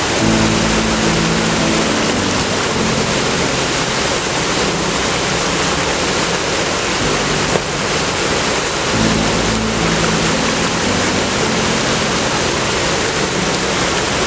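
Steady loud rushing noise of a moving passenger train, wheels on rail and air rushing past, with a low hum that comes and goes twice.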